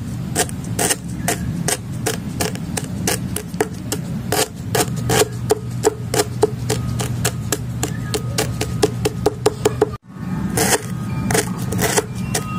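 Pink apple snail egg clutch being crushed and ground under a wooden stick: dense, crisp crackling and popping of the tiny egg shells. The sound cuts out for a moment about ten seconds in, then the crackling starts again.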